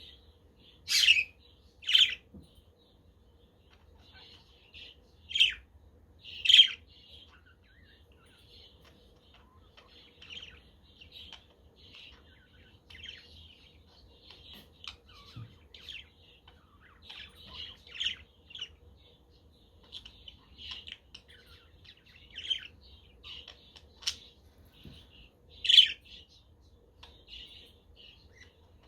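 A flock of budgerigars chattering with steady short chirps, broken by several much louder sharp squawks, a few near the start and one near the end.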